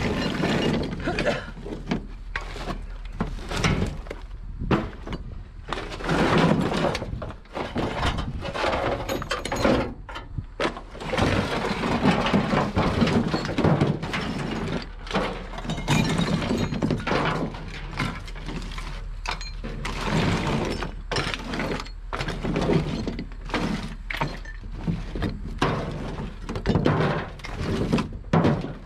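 Scrap metal clanking and clattering as pieces are pulled off a truck bed and thrown onto a scrap pile: irregular knocks, bangs and scrapes of metal on metal.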